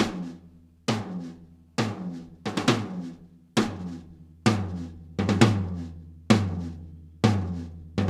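Rack tom on a drum kit struck repeatedly for a sound check, about one hit a second. Each hit rings out and dies away, and twice a hit comes as a quick double stroke.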